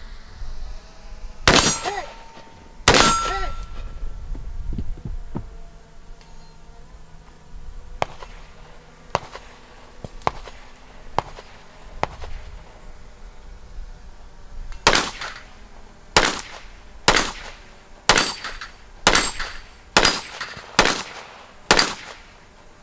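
Gunfire on a 3-gun stage. Two loud shots about a second and a half apart, each followed by a ringing steel target, then a few fainter cracks spaced about a second apart. From about fifteen seconds in comes a steady string of about eight shots, roughly one a second.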